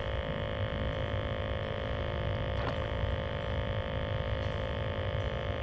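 A steady hum of several even, held tones over a low, unsteady rumble, with a faint tick about two and a half seconds in.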